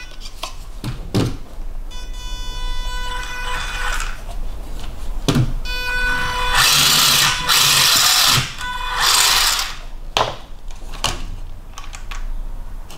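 Electric motor and drivetrain of a WPL WP-14 1/16 RC truck run from the transmitter: a steady whine about two seconds in, then a loud whir from about six and a half seconds that stops near eight and a half and comes back briefly near nine. A few knocks as the plastic truck is handled and set down.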